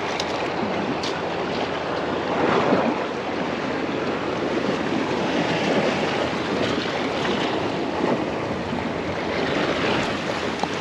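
Sea surf washing steadily against shore rocks, with wind buffeting the microphone.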